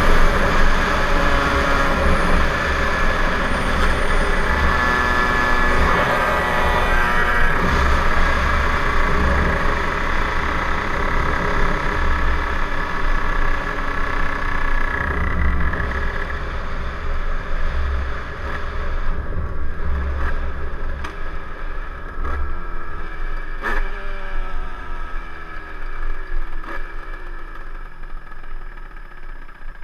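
Kundo KRD 70 moped's two-stroke 70cc engine, fitted with a Stage6 kit, Mikuni carburettor and a new exhaust, running at speed under way, with wind buffeting the helmet-mounted microphone. From about halfway the engine note falls in pitch and grows quieter as the bike slows down.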